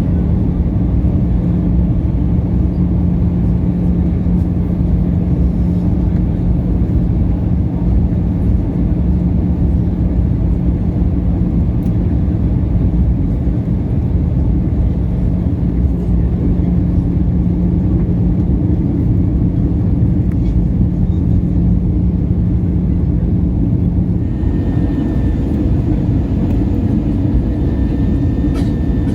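Steady cabin noise of an Airbus A320 descending on approach: engine and airflow rush with a steady low hum that stops late on, after which a faint higher whine is heard.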